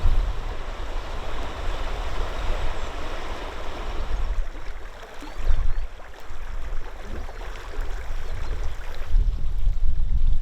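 Rushing river water, a steady hiss that thins out near the end, with wind buffeting the microphone in uneven low rumbles.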